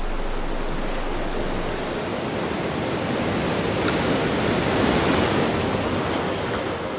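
Ocean surf: a steady rush of breaking waves that swells to its loudest about five seconds in and then eases.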